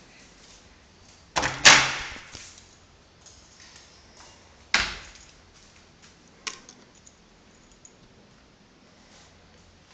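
Wooden door being opened by hand: the handle and latch click and the door knocks, a loud double knock about a second and a half in, another sharp knock just before the five-second mark and a lighter click a little later.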